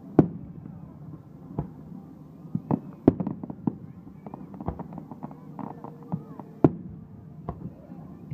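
Aerial firework shells bursting overhead in quick succession: about a dozen sharp booms of uneven strength, the loudest just after the start and about two-thirds of the way through, over a continuous low rumble.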